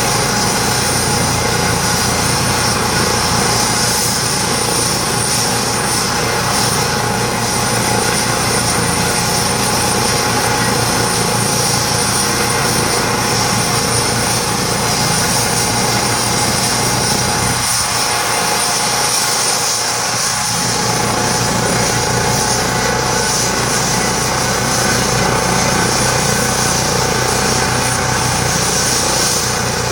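Small propeller aircraft running steadily, a continuous even engine-and-propeller sound with a layer of high hiss.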